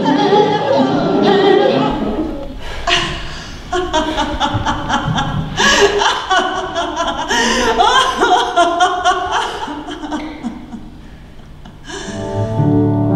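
Performance music with a voice singing and chuckling over scattered clicks and knocks. It dips quieter, then steady held tones come in near the end.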